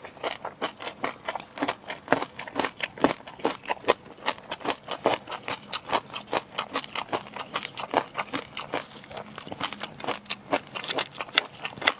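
Close-miked eating sounds: wet, crisp chewing clicks, about four or five a second, steady throughout.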